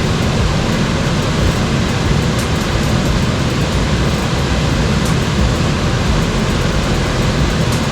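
Waterfall pouring into a creek pool: a loud, steady rush of falling water.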